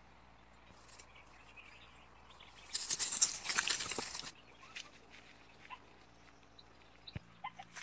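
Rustling and crackling of grass and dry leaves as a person scrambles and drops to the ground in them: one burst lasting about a second and a half near the middle, then a few faint clicks.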